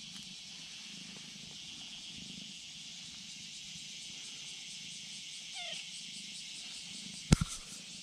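A brown-tabby-and-white cat gives one short, faint meow about five and a half seconds in, over a steady high hiss. Near the end come two sharp knocks close together, the loudest sounds, as the cat brushes against the camera.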